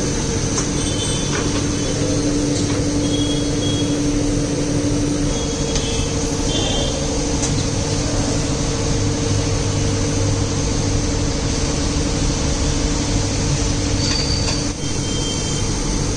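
Workshop machinery running with a steady low hum, with a few short faint squeaks or clinks.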